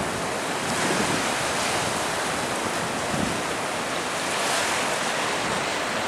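Choppy tidal water washing over a slipway and breaking in small foaming waves, with wind rushing across the microphone. A steady, even wash of noise with no distinct splashes.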